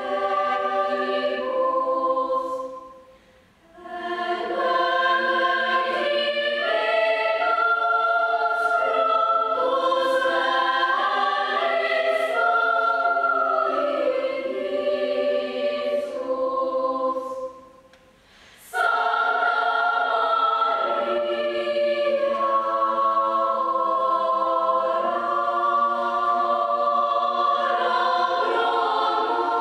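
Female choir singing a cappella in several parts, with two short breaks between phrases, about three seconds in and about eighteen seconds in.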